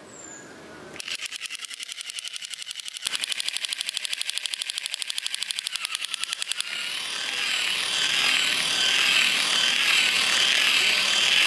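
A battery-powered crawling Captain America soldier toy running. A rapid, even clicking rattle starts about a second in and grows louder about three seconds in. About seven seconds in it changes to a louder warbling electronic tone.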